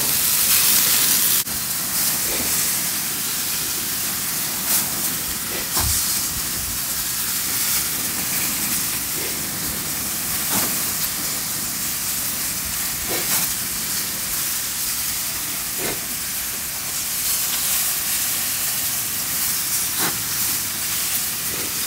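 Lamb steaks sizzling on a gas grill at high heat: a steady hiss with occasional sharp clicks every few seconds.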